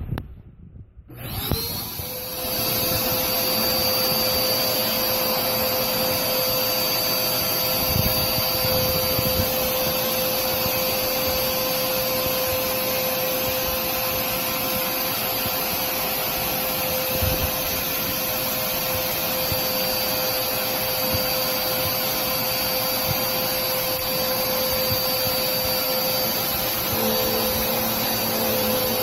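Dirt Devil Power Duo upright vacuum switching on about a second in, its motor whining up to speed, then running steadily with a high whine.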